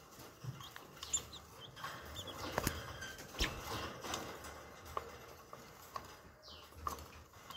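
Green junglefowl chicks giving a few short, high peeps, with several sharp taps and knocks as they peck at a hand and move about a wire cage.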